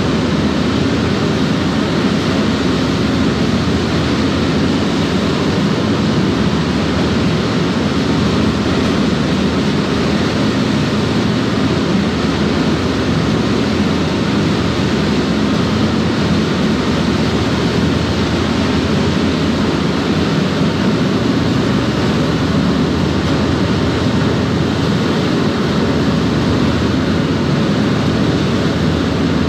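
A SeaStreak high-speed ferry's waterjet drives running steadily at speed, with churning wake water at the stern: a loud, even, deep rushing roar that does not change.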